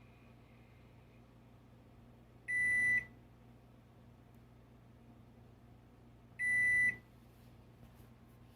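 Toshiba microwave oven's control panel beeping twice, about four seconds apart, each a single steady electronic tone lasting about half a second.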